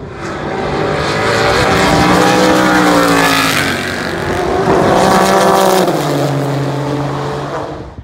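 Race cars passing at speed, two pass-bys in a row. Each engine note swells and then falls in pitch as the car goes by.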